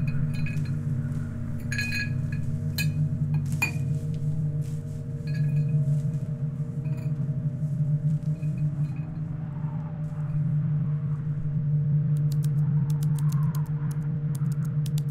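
Sound-designed score: a steady low drone under scattered glassy clinks and chimes in the first few seconds, then a run of rapid high ticks near the end.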